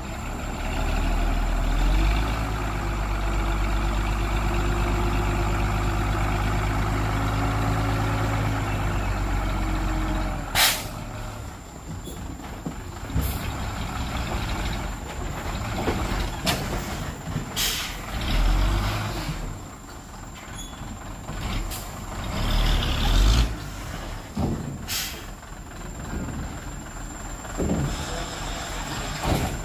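Hyundai 5-ton dump truck's engine held at raised revs for about ten seconds, driving the hydraulic hoist as the loaded bed tips up. The engine then drops back and runs unevenly, with several sharp clanks as the load is dumped.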